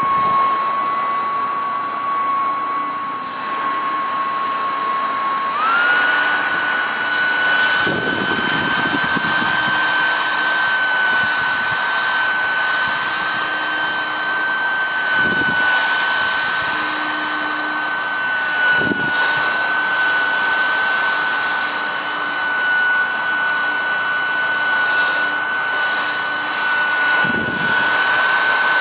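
Mini USB keyboard vacuum cleaner running, a steady high motor whine with airflow hiss. The pitch steps up about five seconds in and then holds, with a few short knocks along the way.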